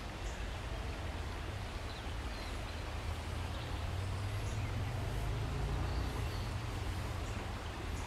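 Outdoor background noise: a steady low rumble under a faint hiss, with a few faint high chirps scattered through it.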